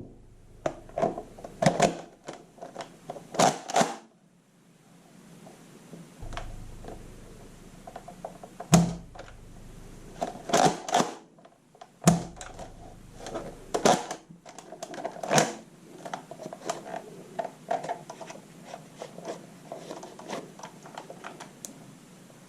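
Scattered plastic clicks, knocks and rattles of a Nerf foam-dart blaster being handled and readied for shooting, some in quick clusters, with a short lull about four seconds in.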